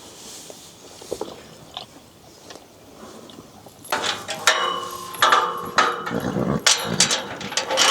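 A horse whinnying loudly, starting about halfway through and running on to the end, after a quiet stretch with a few faint clicks.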